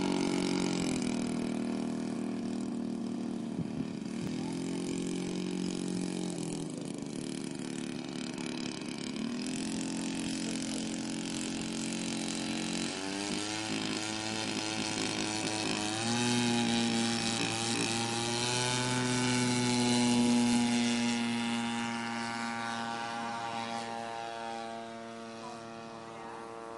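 Engine of a quarter-scale Fokker Eindecker radio-controlled model plane, running at low throttle with small changes in pitch while the plane sits and taxis. About halfway through it opens up for the takeoff run, is loudest a few seconds later, then fades as the plane climbs away.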